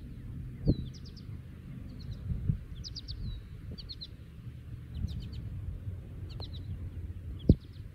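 Songbirds chirping in quick bunches of short high notes throughout, over a low rumble. About seven and a half seconds in a single sharp click, the loudest sound, is the putter striking the golf ball; a softer knock comes just under a second in.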